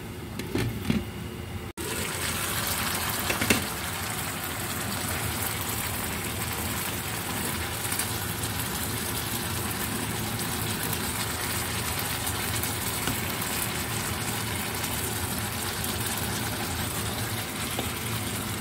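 Chicken and bitter gourd simmering in sauce in a wok, a steady even hiss of bubbling liquid that starts abruptly about two seconds in.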